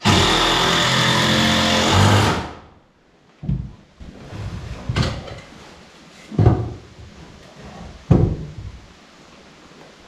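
A power tool runs for about two seconds, then winds down. Four heavy knocks follow, about a second and a half apart, as of wood being struck during construction.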